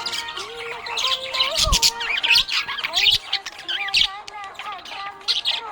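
Budgerigars chattering and chirping in a rapid, continuous stream of high tweets and warbles.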